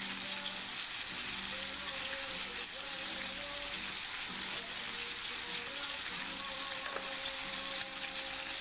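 Slices of Iberian pork secreto searing in a hot frying pan: a steady, dense sizzle of meat frying.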